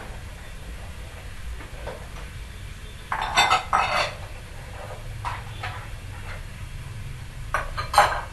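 Clattering and clinking of hard objects in two short bursts, one about three seconds in and one near the end, over a steady low hum.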